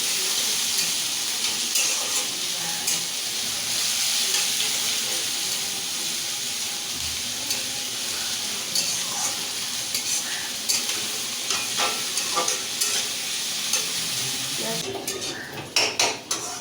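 Onions frying in hot oil in a kadai, a steady sizzle, with a spatula stirring them against the pan as they are browned. Near the end the sizzle drops and spatula knocks and scrapes on the pan come to the fore.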